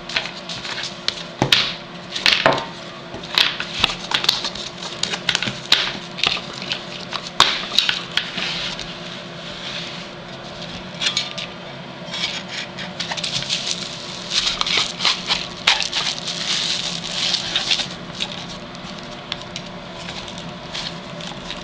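Handling of a steel Special Forces entrenching shovel and its sheath: scattered clicks and taps of metal, with spells of rustling.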